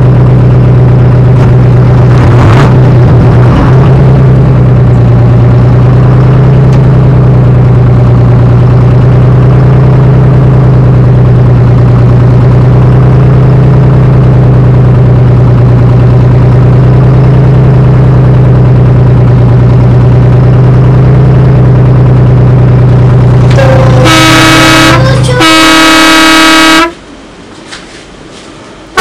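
Large vehicle engine idling with a steady, loud low drone, then two long horn blasts in quick succession near the end, after which the engine sound stops.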